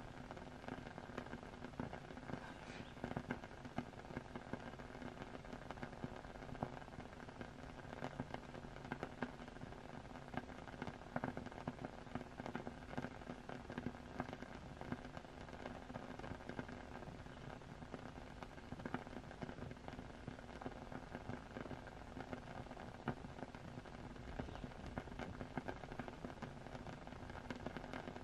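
Steady rain ambience with frequent small crackling pops throughout, over a faint steady hum.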